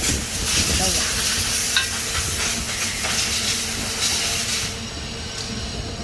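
MIG welding arc from a Daihen Fuzzy 350 welder, crackling and sizzling steadily, then cutting off about four and a half seconds in as the arc stops.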